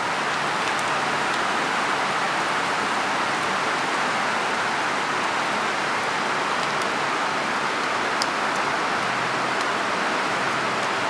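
Heavy rain pouring down, a dense, steady hiss.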